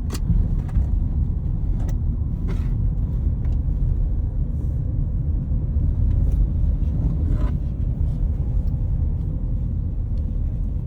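Steady low rumble of a car driving, heard from inside the cabin, with a few brief clicks or knocks.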